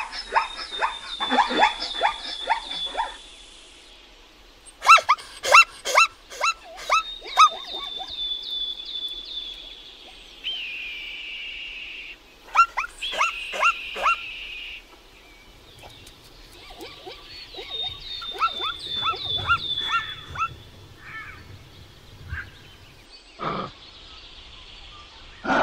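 Plains zebra calling: several bouts of rapid, repeated barks, each bout lasting a few seconds, with a short, different call near the end.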